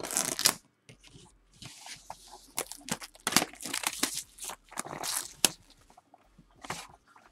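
A knife slitting and tearing the plastic shrink wrap off a sealed Topps Tier One baseball card box, with irregular crinkling rips and scrapes. The loudest rip comes about half a second in.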